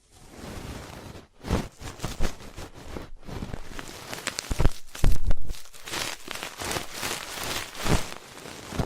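Ear-cleaning ASMR sounds: an ear pick scraping and rubbing close against the microphone in a dense run of short scratchy strokes, loudest about five seconds in.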